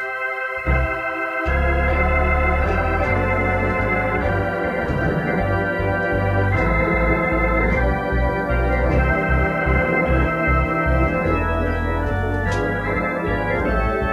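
Organ playing an instrumental passage: held chords over a bass line that moves from note to note.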